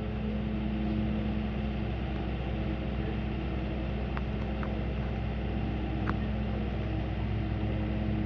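A steady low mechanical hum with a constant pitch, like a motor or engine running, and two faint clicks in the middle.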